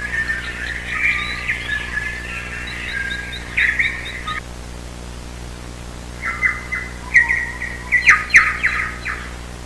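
Birds chirping in quick runs of short high notes, a first spell that stops a little before halfway and a second, louder spell near the end, over a faint steady low hum.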